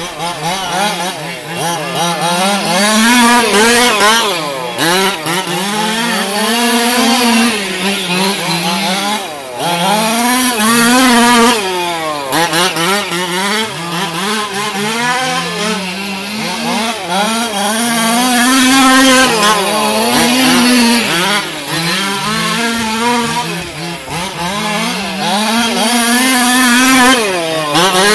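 Small two-stroke gas engines of two large-scale RC dirt-oval cars running hard. Their overlapping engine notes rise and fall in pitch every few seconds as they rev down the straights and back off into the turns.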